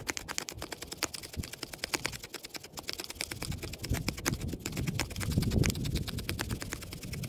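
A knife carving thin curls down a wooden stick to make a feather stick for fire-lighting: rapid, sharp ticks, with a heavier scraping stroke about five seconds in.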